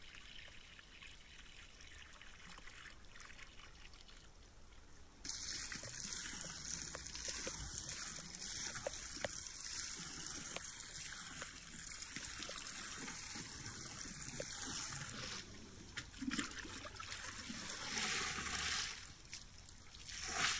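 Water trickling and splashing, starting suddenly about five seconds in, running steadily, and growing louder for a moment near the end.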